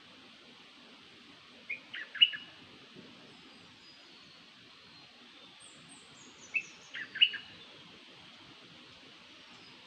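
Bird lure call for the bird known in Thai as nok dok taeng: a short phrase of a few sharp notes, heard twice about five seconds apart, with faint higher twittering between them over a steady hiss.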